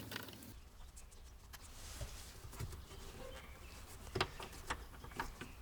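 Faint clicks and taps of a Torx T30 tool unscrewing a rear seat mounting bolt, with a few sharper clicks near the end.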